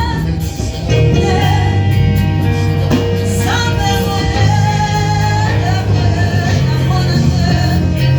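Church worship music: singing over a band, with a strong, steady bass line.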